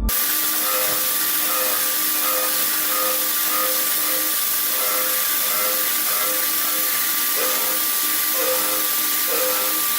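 CNC machine running with a steady loud hiss and a steady whine, plus a tone that pulses on and off about once a second.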